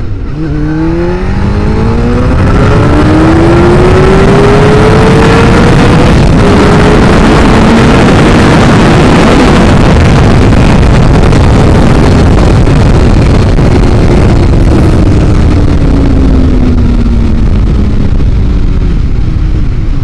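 Suzuki GSX-R600 inline-four sport-bike engine accelerating hard. It shifts up about three times in quick succession, then pulls long in a higher gear, and the pitch falls away as it slows near the end. A loud rush of wind over the helmet microphone builds with the speed and fills the middle of the clip.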